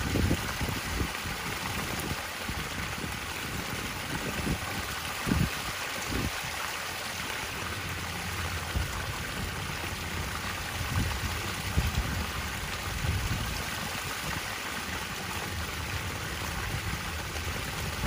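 Water falling in sheets from three sheer-descent waterfall spillways and splashing into a swimming pool: a steady splashing hiss. Low buffeting of wind on the microphone comes and goes, strongest near the start.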